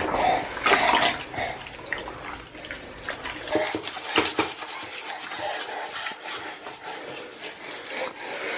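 Water splashing and sloshing in a baby's bath, with scattered short splashes and small knocks at an irregular pace.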